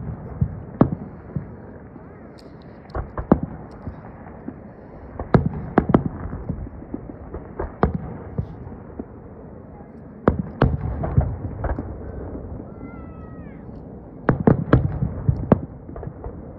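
Aerial firework shells bursting: sharp bangs, some single and some in quick clusters of several, with short lulls between.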